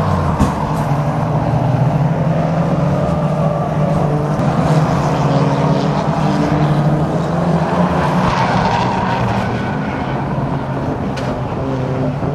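Several banger racing cars' engines running together as a pack laps the oval, a steady engine drone, with a sharp knock about half a second in and another near the end.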